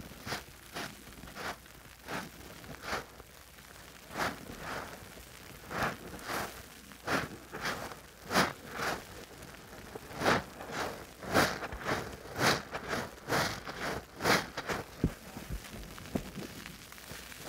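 Soap-loaded sponge squeezed again and again by gloved hands in thick foam: wet squelches of suds, about one or two a second, loudest through the middle and thinning out near the end.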